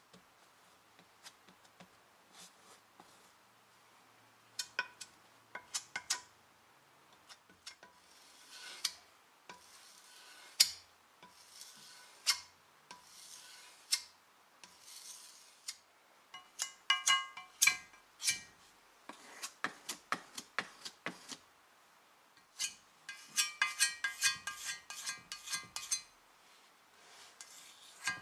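A putty knife scraping and tapping on a metal book-press plate as filler paste is spread and scraped off: irregular short scrapes and clicks. About 17 s in, and again from about 23 to 26 s, come runs of quick, rattling strokes with a ringing metallic edge.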